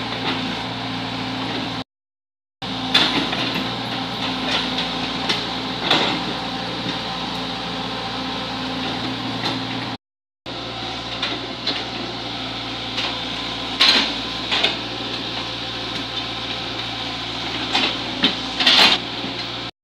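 Hitachi crawler excavator's diesel engine running steadily under load while it digs out a ditch, with scattered knocks and clanks from the bucket and arm, the loudest near the end. The sound cuts out briefly twice.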